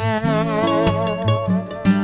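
Instrumental background music: a held note that wavers in pitch over the first second, then a run of shorter notes.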